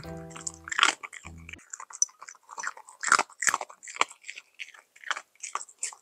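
Japanese Spitz chewing a bowl of diced carrots, peas and kibble, with a dozen or so sharp crunches at an irregular pace. Soft background music stops about a second and a half in.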